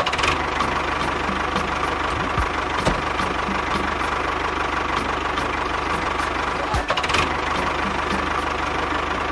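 Miniature toy tractor's engine sound running steadily, with an even, rapid knocking beat of about three a second.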